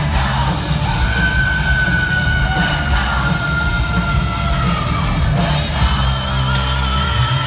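Hard rock band playing live, recorded from the crowd: drums, distorted electric guitars and a long high note that slides slowly down. Near the end the drum strokes stop and a chord rings on, with crowd yells.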